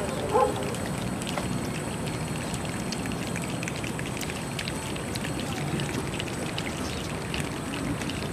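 A large crowd of choir singers snapping their fingers and rubbing their hands to imitate rain: many scattered snaps over a steady hiss.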